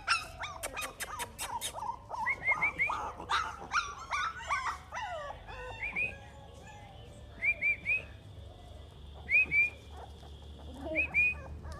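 American bully puppy yipping and whimpering during play. Its short high-pitched yips come in quick groups of two or three, several times over.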